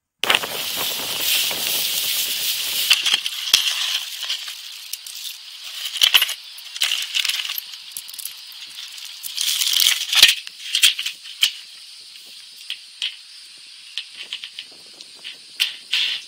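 Small metal hardware (bolts, washers and nuts) clinking and rattling as it is handled, over a rustle. The sound comes in suddenly and is densest for the first few seconds, then thins to scattered clicks and short rustles.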